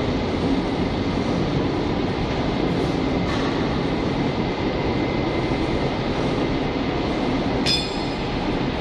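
Heavy industrial machinery running steadily: a continuous low mechanical rumble with a thin high whine over it. Near the end a single short metallic ping rings out.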